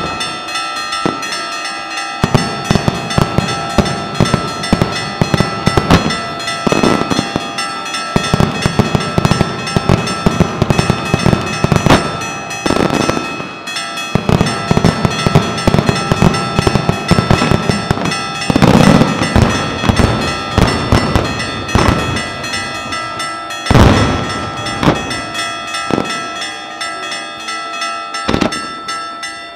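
Daytime fireworks: dense, rapid crackling of firecrackers and bursting smoke shells, with several louder booms, while church bells ring steadily underneath.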